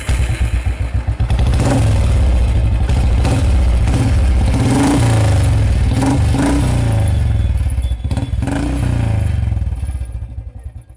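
Motorcycle engine running and being revved, its pitch rising and falling several times, then dying down near the end.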